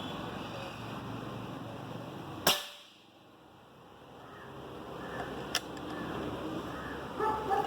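Precihole PX100 PCP air rifle firing a single shot, one sharp crack about two and a half seconds in, followed about three seconds later by a much fainter click.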